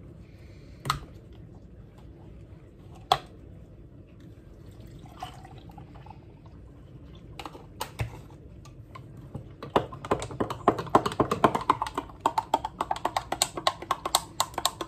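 Metal spoon clinking rapidly against a drinking glass while stirring a milkshake, several clinks a second, starting about two-thirds of the way in. Before that, a few single knocks as the milk carton and glass are handled and set down on the counter.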